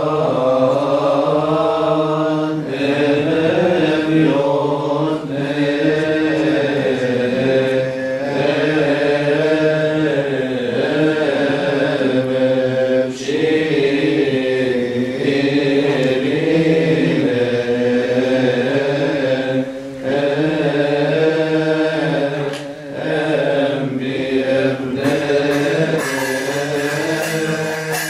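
Male voices chanting a slow, melismatic Coptic Orthodox hymn, with long held notes that bend in pitch and short breaks between phrases.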